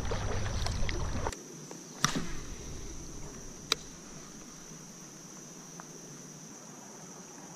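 Kayak and fishing gear on calm water: a low rumble of movement for about the first second, then quiet with a couple of sharp clicks and a steady high-pitched hum.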